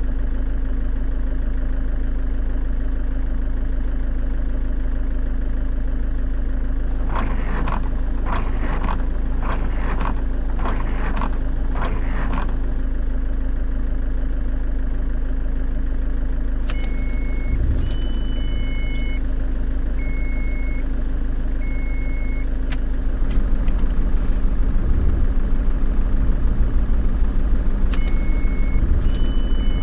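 Electronic sound effects of a toy truck: a steady engine hum throughout, a quick run of short toots about seven seconds in, then a high reversing beep repeating about once a second from the middle and again near the end.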